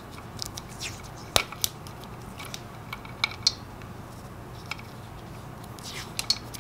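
Black vinyl electrical tape being peeled off the roll and wrapped around wire-nut connections: scattered short crackling peels and light clicks, with one sharper click just under a second and a half in.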